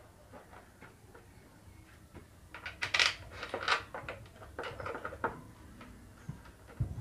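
Scattered clinks and knocks of metal tools and engine parts being handled, most of them in a cluster through the middle few seconds, a few with a short metallic ring.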